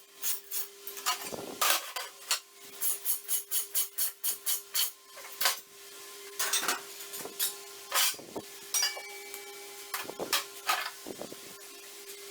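Metal pieces clinking and tapping in a series of sharp, irregular clicks, with a quicker run of about three a second a few seconds in, over a steady faint hum.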